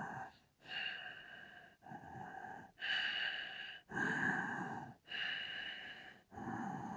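Close-miked human breathing: a series of short, noisy breaths following one another about a second apart.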